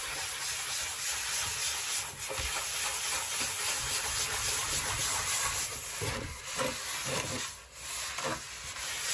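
Fine-grit sanding sponge rubbed back and forth over a Creality glass 3D-printer bed, roughening the glass: a steady gritty rubbing that breaks into separate strokes near the end.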